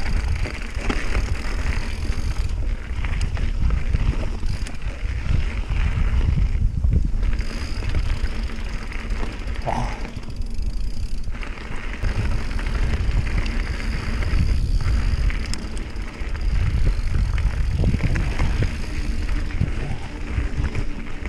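Mountain bike rolling fast down a rough dirt and gravel trail, with the tyres crunching and the bike rattling over bumps under a heavy rumble of wind on the handlebar microphone.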